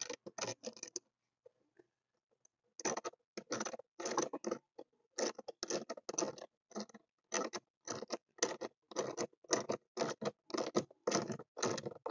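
Hand socket ratchet driving in a bolt: quick back-and-forth strokes, each a short run of ratcheting clicks, about three strokes a second, starting about three seconds in.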